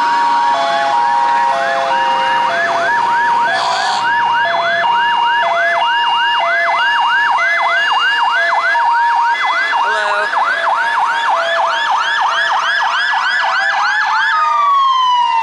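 Several emergency-vehicle sirens sounding at once: a fast yelp of about four sweeps a second over a slower two-tone hi-lo. Near the end the yelp gives way to a slow falling wail.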